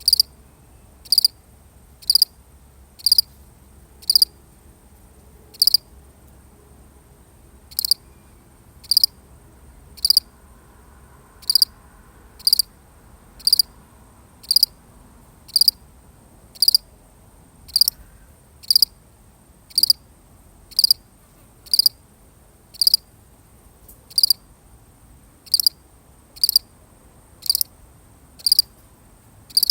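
A single cricket chirping, short sharp chirps about once a second, with a longer pause of about two seconds near the first quarter. A faint, steady high-pitched tone runs underneath.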